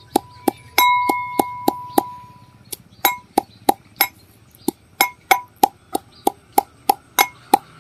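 Pestle pounding coriander in a mortar: a steady run of sharp strikes, about three a second, with a brief pause a little after two seconds in. Several strikes ring with a clink.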